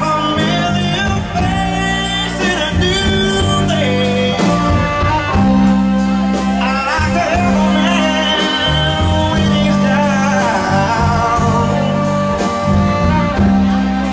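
Band music: a singing voice over guitar, bass and a steady drum beat.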